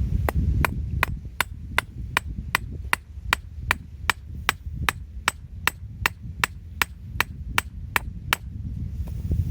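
Hammer striking in a steady rhythm, about two and a half sharp blows a second, some twenty in all, stopping about a second before the end. A low rumble of wind runs underneath.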